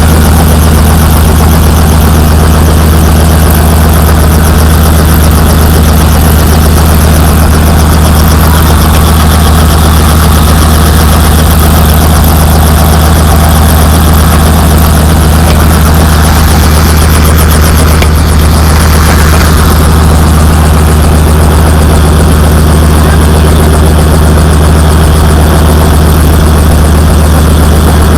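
Helicopter running, a loud, steady low drone that holds through the whole stretch.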